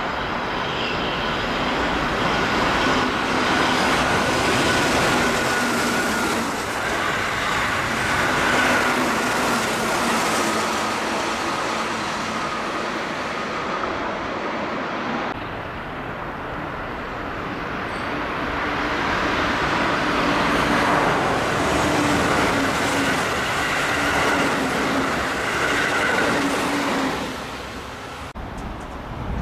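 Keihan electric trains passing through the station at high speed without stopping, two in succession, the first a Keihan 8000 series set. Each pass is a loud rush of running noise with a steady whine, building and then fading.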